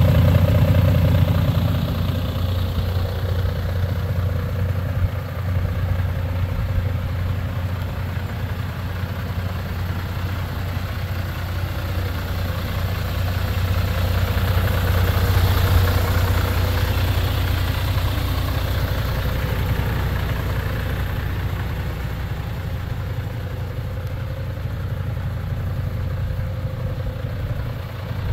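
Mercedes-Benz Arocs 1840 truck's six-cylinder diesel engine idling steadily, growing louder for a few seconds around the middle.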